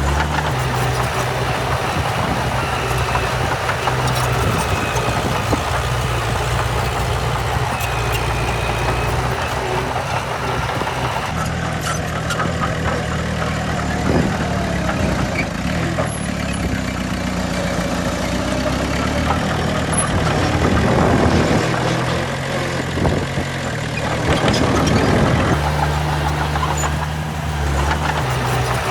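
Heavy diesel engines of earthmoving machinery, a bulldozer and dump trucks, running continuously. The sound changes character about a third of the way in and changes back near the end, with the engine note shifting up and down in the later part of that stretch.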